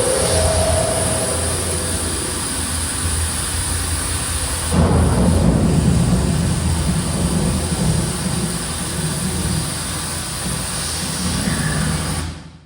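Surround-sound test demo playing through a Zebronics Zeb-Juke Bar 9400 Pro 5.1 soundbar and subwoofer: a deep, continuous rumbling effect that swells about five seconds in and fades out near the end.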